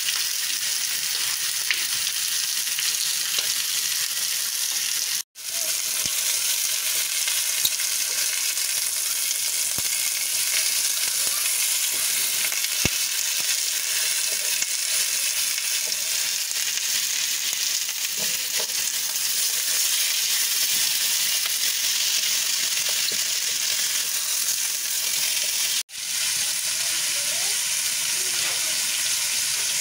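Pieces of lamb neck sizzling steadily as they are seared in a hot pan. The sizzle cuts out for an instant twice.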